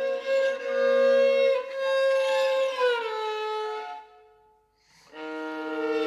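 Bowed violin music in a contemporary style: long held notes, sometimes two at once, with slides in pitch. It fades out about four seconds in and comes back in just before the end.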